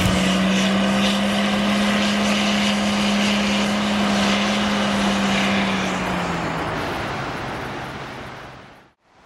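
Toyota LandCruiser 100 Series engine droning steadily as the 4WD pulls through soft beach sand, fading away over the last few seconds.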